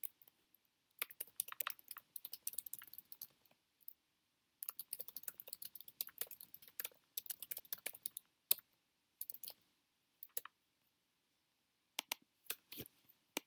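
Typing on a computer keyboard: two runs of quick keystrokes, then a few scattered key taps near the end.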